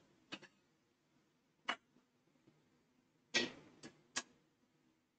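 Faint, scattered clicks and knocks of objects being handled, five or so in all, the loudest about three and a half seconds in with a short ring after it, in a small quiet room.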